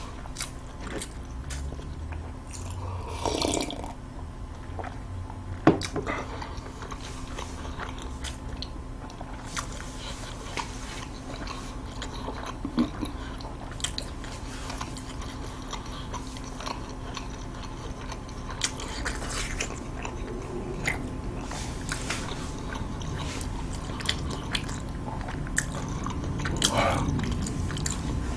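A person chewing a mouthful of food close to the microphone, with scattered short mouth clicks and smacks, over a faint steady hum.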